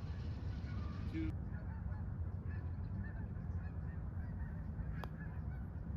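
Geese honking in the distance over a steady low rumble of wind on the microphone, with a sharp click of a golf club striking the ball about five seconds in.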